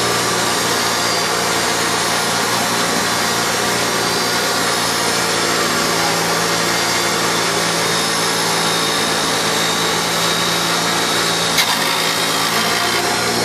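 Central Machinery bench grinder running steadily, its motor humming, while a flat strip of rusty steel is held against the spinning wheel, giving a continuous hissing grind. A single sharp click near the end.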